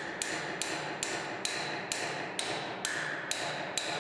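Steel hammer striking an old steel spanner wrench on a surface grinder's wheel flange: a steady run of sharp, ringing blows, about two and a half a second. The blows are breaking loose a left-hand threaded flange that was jammed over-tight when the grinding wheel was violently stopped in a crash.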